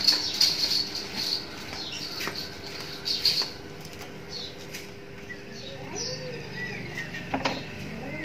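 Light knocks and scraping as a large painted wooden bed panel is handled and carried, with a pigeon cooing in the second half.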